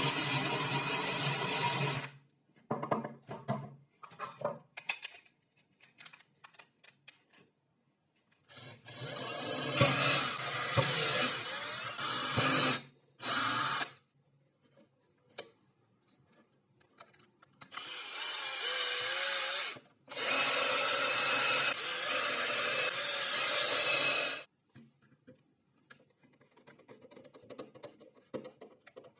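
A power tool working wood in five loud bursts of a few seconds each, each starting and stopping suddenly. Small knocks and scrapes from handling the work fall between the bursts.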